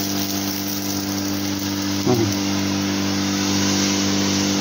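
Battery-powered 12-litre garden sprayer running: its electric pump hums steadily while the wand's nozzle hisses out a fine spray.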